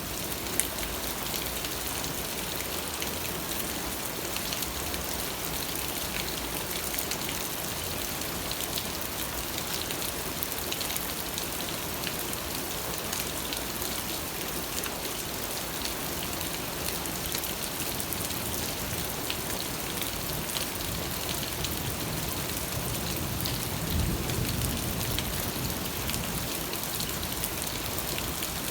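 Steady rain falling and pattering on surfaces, with many fine individual drop ticks, and a brief low rumble near the end.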